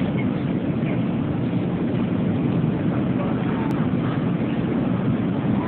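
Steady cabin noise of an airliner descending: the even rush of engines and airflow heard from inside the cabin, heaviest in the low range, with faint voices in the background.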